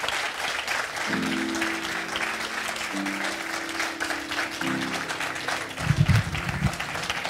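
Congregation clapping, with an instrument playing held chords from about a second in and a few low bass notes near the end.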